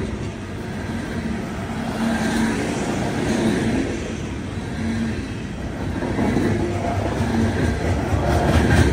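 Norfolk Southern coal train's steel coal gondolas rolling past close by: a steady rumble of wheels on rail, with wheel clicks that grow louder near the end.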